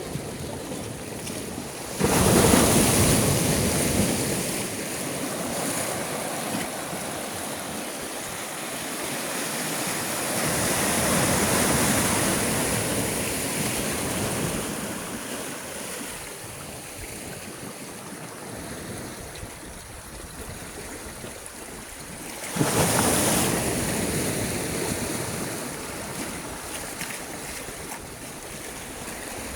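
Sea waves breaking: a sudden loud crash about two seconds in and another about two-thirds of the way through, each washing off slowly, with a softer surge in between over a steady hiss of surf.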